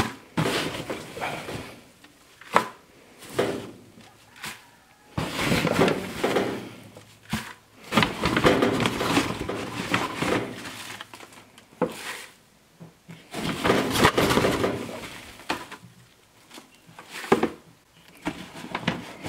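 A paper bag rustling and dry wood shavings crunching and shifting as a plastic scoop digs into them, in irregular bursts with a few sharp knocks.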